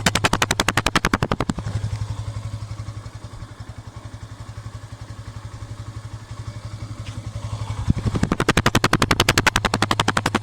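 Motorcycle exhaust firing in a rapid, even string of loud pops, about ten a second, sounding like a machine gun. It eases off in the middle and is loud again near the end.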